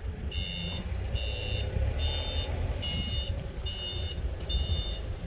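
A vehicle's reversing alarm beeping in a steady series, about one half-second beep a second, over a low rumble.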